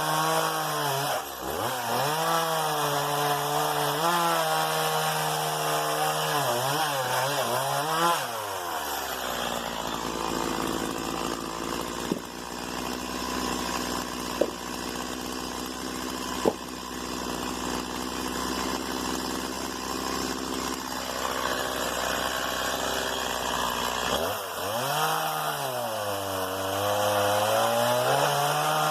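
STIHL MS 170 small two-stroke chainsaw running at high revs, its pitch sagging and recovering repeatedly as it cuts wood under load. About eight seconds in it drops to a lower, steady speed with a few sharp clicks, then near the end it revs up and cuts again.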